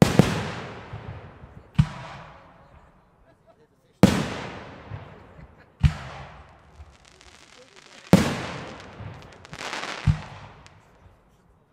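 Aerial fireworks bursting overhead: six sharp bangs about two seconds apart, each trailing off in a long fading echo, with crackling after the fourth bang.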